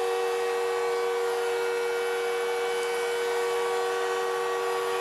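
Arena goal horn sounding a steady chord of several held tones, signalling a goal just scored.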